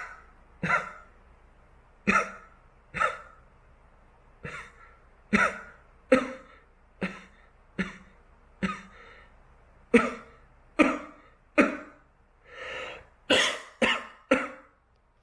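A person coughing, about seventeen short coughs one after another, roughly one a second, with a softer, longer one near the end.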